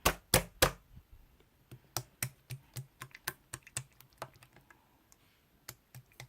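A series of sharp clicks or taps in an uneven rhythm. Three loud clicks come at the start, then lighter ones about four a second, then a pause of about a second before two more near the end.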